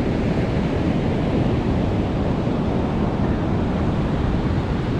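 Ocean surf breaking and washing up a sandy beach: a steady, unbroken rush of waves, with wind on the microphone adding a low rumble.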